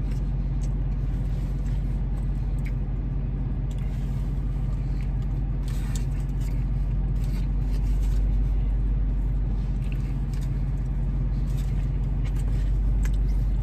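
Car engine idling, a steady low rumble heard from inside the cabin, with a few faint clicks and chewing sounds from eating.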